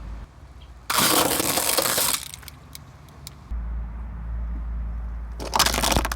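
Car tyres rolling over brittle objects and crushing them, with two loud bursts of crunching and cracking: one of about a second a second in, and a shorter one near the end. The car's low engine hum comes in between them.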